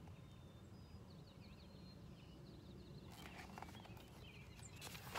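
Page of a large hardcover picture book rustling as it is turned, loudest near the end, after a few faint bird chirps in the quiet background.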